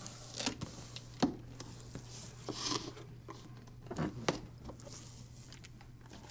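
Cardboard box being opened by hand: a few light knocks and scrapes and a brief rubbing swish as the top flaps are worked loose and folded back.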